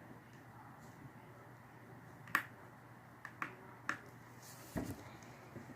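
Faint, sharp little clicks and taps from handling a phone's parts and tools during disassembly. One louder click comes about two and a half seconds in, three lighter ones follow over the next second and a half, and there is a short scrape near the end.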